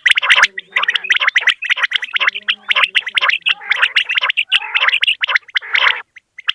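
Common quails calling: a dense run of rapid, sharp repeated notes with brief pauses, and a short gap about six seconds in.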